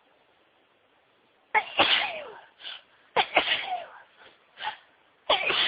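A woman sneezing three times in quick succession, starting about a second and a half in, with short breaths between the sneezes.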